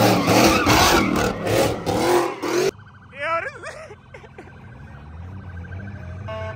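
Street-takeover car noise: engine and tyres screeching, loud and continuous, cutting off abruptly about two and a half seconds in. Then much quieter, with a brief rising and falling wail about a second later.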